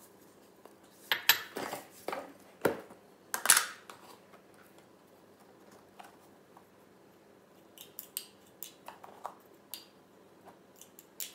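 Ceramic bowl set down on a granite countertop: a few sharp knocks and clatters in the first few seconds, then lighter clicks and taps of kitchen things being picked up and handled.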